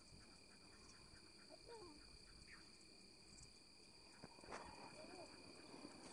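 Near silence: a faint steady drone of evening insects, with a few faint short calls and a soft knock about four and a half seconds in.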